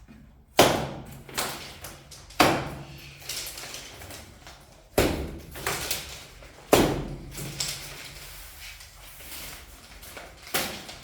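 Packaging being pulled off a new fridge: a series of about six sharp rips and knocks, a second or more apart, each trailing off briefly.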